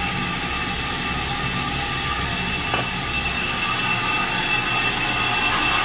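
Brake lathe running, turning a brake disc to machine off the worn lip at its rim, with a steady high metallic whine that grows slightly louder near the end.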